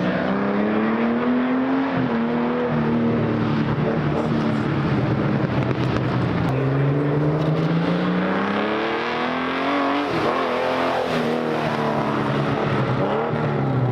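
Vintage race car engine pulling around a track, its pitch climbing over the first couple of seconds, then levelling off and climbing again from about halfway. Near the end the note wavers and dips as the car passes close by.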